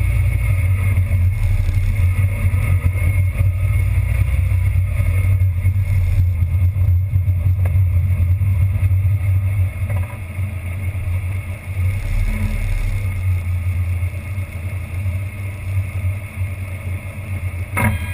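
Car driving at speed with a steady, loud low rumble of road and wind noise; a sharp click near the end.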